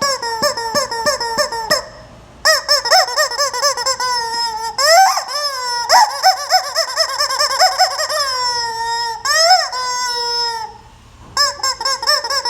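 Rubber chicken squeak toy squeezed over and over: runs of quick squeaks and longer drawn-out squawks that fall in pitch, broken by two short pauses.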